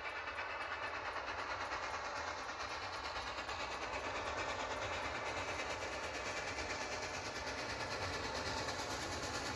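Reading & Northern steam train, double-headed by locomotives 2102 and 425, rolling past with a steady, even rush of wheel and rail noise.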